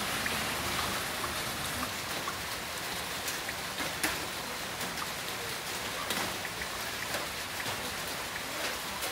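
Heavy rain falling steadily: a dense, even hiss thick with sharp individual drop impacts, one louder splat about four seconds in.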